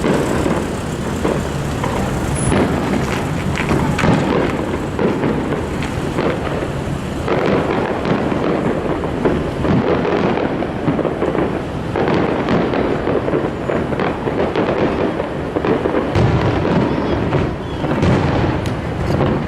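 Aerial fireworks bursting in quick, overlapping succession: a continuous run of booms and crackling with no pause.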